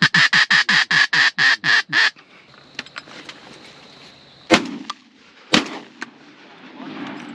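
A duck call blown in a fast run of about ten quacks, roughly five a second, then two shotgun shots about a second apart.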